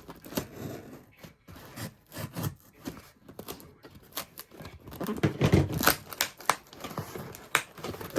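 Cardboard shipping box being unpacked by hand: rustling, tearing and crinkling of box and packing, with scattered clicks and knocks, loudest about five to six seconds in.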